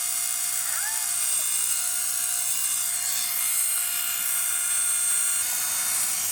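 Central Pneumatic air compressor's electric motor running with a steady high whine and a fizzing hiss, being run to failure with its cooling fan removed while it overheats and throws sparks.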